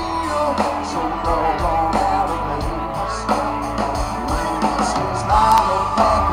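A live country band playing loud amplified music through a large PA, with a steady drum beat, bass, electric guitar and a singer.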